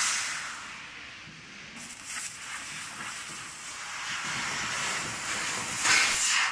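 Fiber laser cutting machine cutting sheet metal: a steady hiss from the cutting head as the gas jet blows through the cut. The hiss is louder at the start and again near the end, with a brief dip a little under two seconds in.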